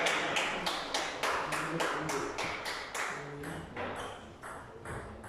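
A quick, even run of sharp taps, about four a second, dying away, with people talking in the hall.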